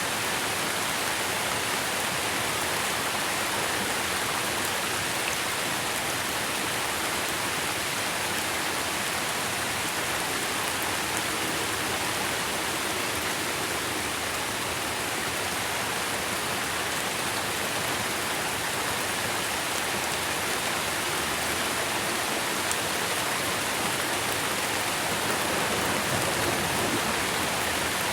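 Steady rain falling on trees, a dense even hiss of drops on leaves without a break.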